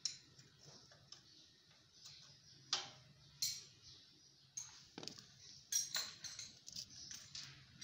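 Light irregular clicks and taps of a small plastic motorcycle battery case being handled and set down, with a faint low hum underneath.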